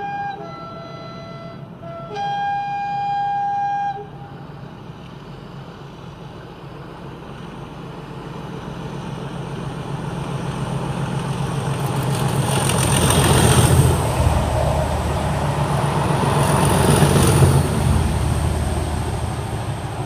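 Pair of Class 37 diesel locomotives, their English Electric V12 engines working hard up a bank. A two-tone horn sounds two blasts in the first few seconds, the second longer and louder. Then the engine growl builds, with a thin high turbocharger whistle, and is loudest as each locomotive passes beneath, about two thirds of the way through and again a few seconds later, easing off near the end.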